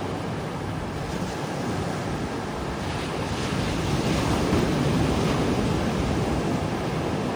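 Ocean waves breaking and washing up on a beach, swelling louder about halfway through as a wave comes in, with wind buffeting the microphone.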